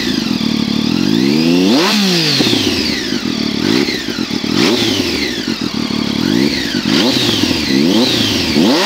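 Triumph Daytona 675's inline three-cylinder engine through a LeoVince SBK race exhaust, revved repeatedly on the stand, the pitch rising and falling with each blip of the throttle.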